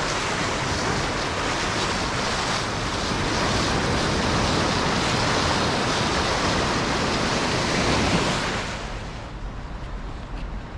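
Wind and the sea rushing at a ship's bow, a loud, steady roar of noise that drops away suddenly about nine seconds in, leaving a quieter low rumble.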